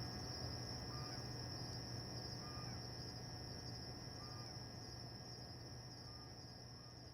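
Faint outdoor ambience fading out: a steady high insect drone, a short animal call repeating about every second and a half, and a low hum underneath.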